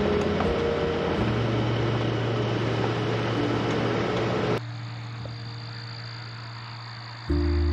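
Background music of long held notes over a steady rush of vehicle and wind noise. The rush cuts off suddenly about four and a half seconds in, leaving the music quieter, and the music comes back louder near the end.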